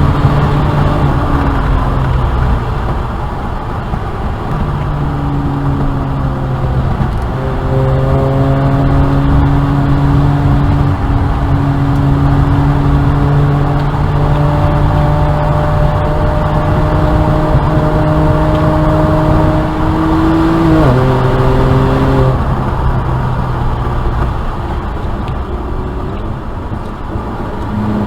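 BMW N54 twin-turbo straight-six engine of a 335i being driven hard on track, its note climbing slowly through long pulls. The pitch drops briefly about two seconds in and drops sharply about three quarters through as the revs fall, then builds again.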